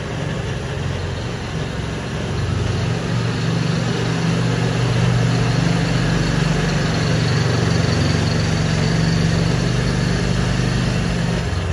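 Off-road buggy's engine running steadily as it drives along a dirt trail, a low drone that grows louder about three seconds in.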